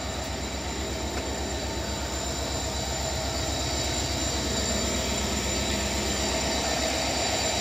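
A stationary locomotive running, a steady mechanical drone with a low throb and several held tones, growing gradually louder.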